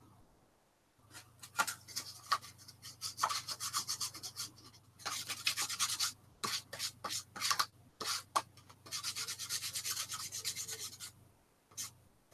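Sandpaper rubbed by hand over a small cork fishing float, in quick back-and-forth strokes that come in runs. There are short pauses about a second in and again near the end.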